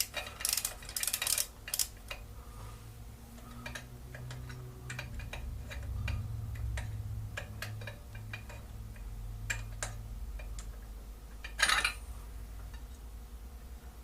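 Scattered small metallic clinks and clicks of hand tools and parts being handled on a motorcycle's rear spark plug, busiest in the first couple of seconds, with one louder click near the end, over a low steady hum.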